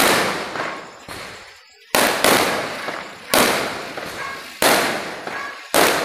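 Diwali firecrackers going off, about six loud bangs spaced a second or so apart, each trailing off in a long echo.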